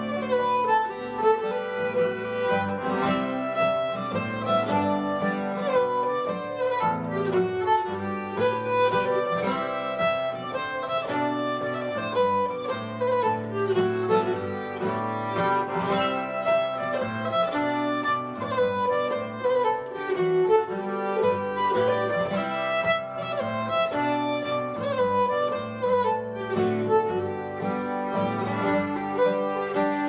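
Nyckelharpa playing a bowed melody with acoustic guitar chords underneath: a Swedish polska, a dance tune in three.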